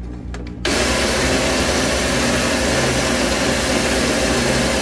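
Taurus 3 diamond ring saw grinding through thick dichroic glass: a low motor hum, then a little over half a second in a loud, steady grinding hiss as the wet diamond ring blade bites into the glass.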